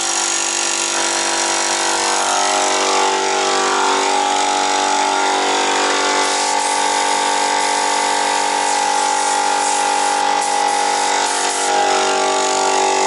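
Electric piston air compressor running steadily, quite loud, with an even motor hum.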